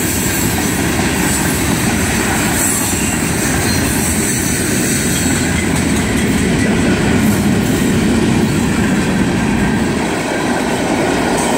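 A long freight train of tank cars and coal hoppers rolling past at moderate speed. Its wheels make a steady, loud rumble on the rails.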